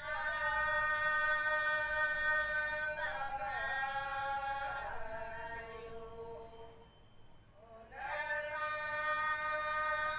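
Devotional hymn sung in long, held notes, the pitch wavering in the middle, with a short break about seven seconds in before the next held note begins.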